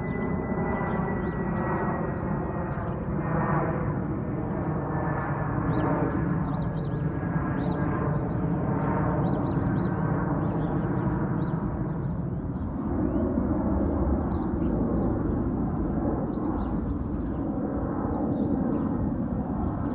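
Twin-engine jet airliner climbing out overhead after takeoff: a steady engine rumble with a high whine whose pitch slowly falls, the whine fading about halfway through and leaving the rumble.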